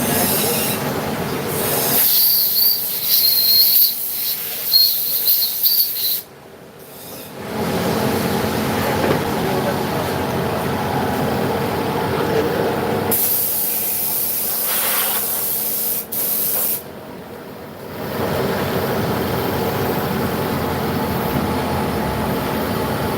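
CNC vertical machining center running, with a steady hiss and a thin high-pitched whine from about two to six seconds in. The sound drops away abruptly twice.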